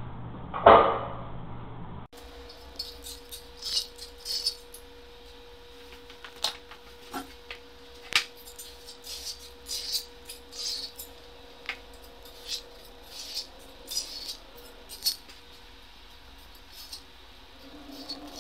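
Irregular light clicks and clinks of small hard objects being handled, over a faint steady hum, after one short loud knock under a second in.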